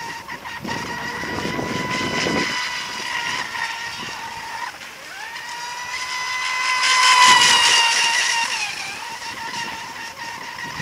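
Brushless RC speed boat running at full throttle: the high whine of its Surpass Rocket 3670 2280kv motor and propeller, dropping off briefly near the middle, then climbing back and loudest as the boat passes closest about three quarters through before fading.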